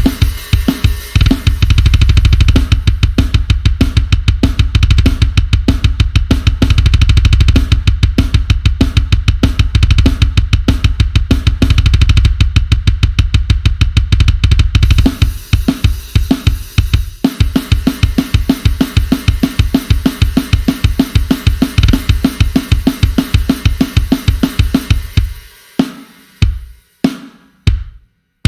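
Sampled acoustic drum kit from the Drum Daddy Kontakt library playing a fast, busy groove with bass drum, snare and cymbals. The heavy low bass-drum part drops away about halfway through. Near the end the playing thins to a few spaced single hits.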